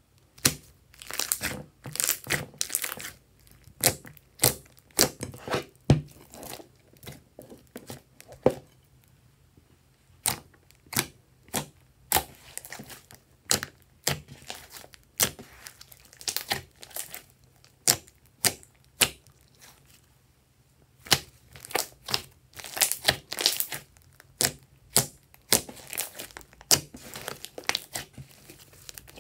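Glossy slime being stretched, pressed and poked by hand, making irregular sticky pops and crackles, with a couple of brief pauses.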